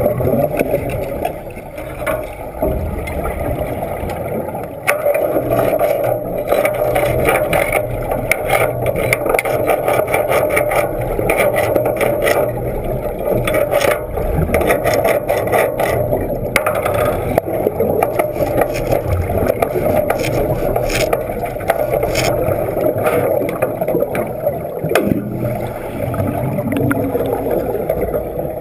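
Underwater bubbling and rapid crackling, picked up by a submerged camera, from a diver wet welding in a flooded tank. The crackle is densest through the middle stretch, over a steady low rumble.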